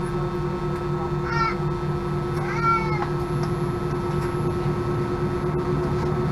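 Steady drone and hum inside an Airbus A319 cabin on the ground, with a low throbbing hum underneath. Two short cries that rise and fall, like a cat's meow, come about a second and a half and two and a half seconds in.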